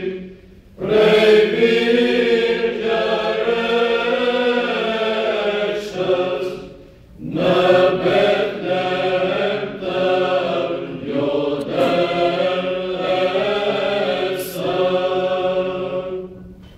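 Mixed choir singing Byzantine chant a cappella, the melody over a steadily held low drone note (the ison). The singing breaks off briefly just after the start and again about seven seconds in, and fades out near the end.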